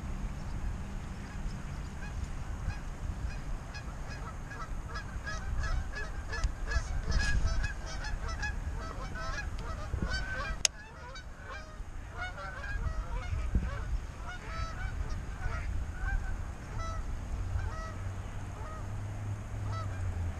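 Geese honking repeatedly, a flurry of short calls that is busiest in the middle stretch and thins out near the end. Underneath is a low rumble, and a single sharp click comes about ten seconds in.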